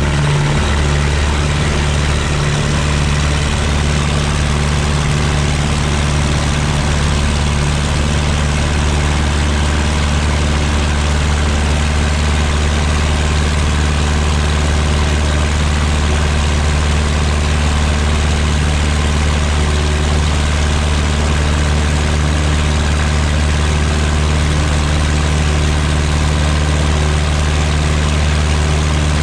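Cub light aircraft's piston engine and propeller running at takeoff and climb power, a steady loud drone heard from inside the cockpit.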